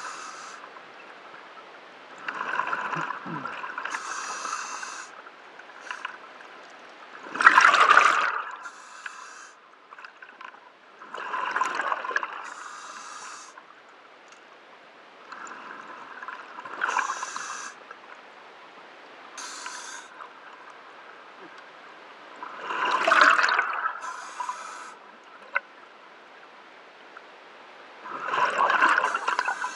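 Scuba diver breathing through a regulator underwater: a burst of exhaled bubbles about every five or six seconds, alternating with a short high hiss of the inhale. The bubble bursts are the loudest sounds.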